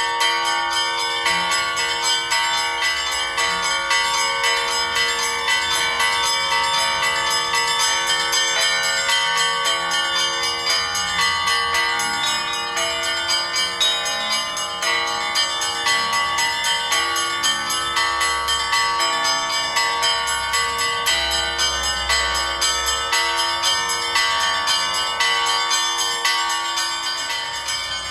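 Bells ringing continuously, struck in quick succession so that their tones overlap and ring on together.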